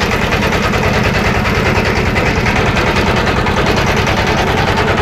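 Engine of a wooden river boat running steadily under way: a rapid, even chugging at a constant level.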